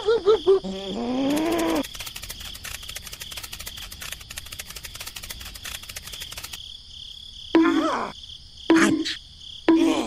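Steady cricket chirping ambience, with high-pitched, sped-up cartoon character voices over it: a wavering voice in the first two seconds and three short squeaks near the end.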